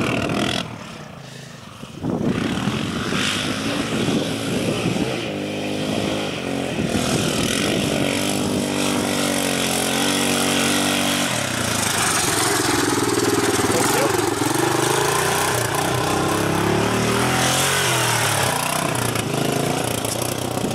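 Three-wheeled ATC's engine working up a hill, its pitch rising and falling with the throttle. It gets louder as the machine comes close, loudest just past the middle.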